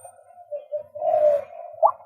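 Male white-breasted waterhen calling: a couple of soft low notes, then near the end a short sharply rising note that begins a quick series of calls.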